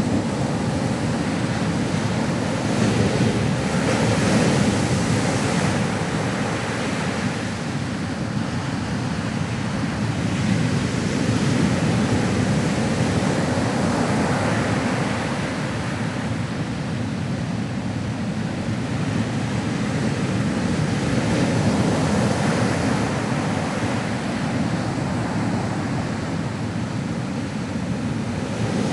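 Ocean surf: waves breaking and washing on a shore in a continuous rush, swelling and easing every several seconds.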